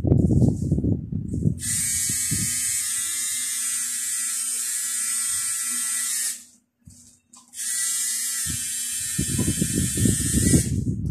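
Electric tattoo machine buzzing steadily as the needle inks the skin, stopping for about a second around the middle and then starting again.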